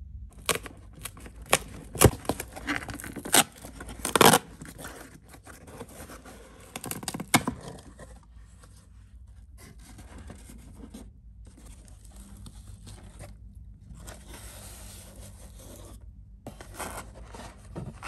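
Corrugated cardboard shipping carton being handled and opened by its tear strip: several sharp knocks and taps against the carton in the first few seconds, the strip ripping, then the flaps scraping and rustling.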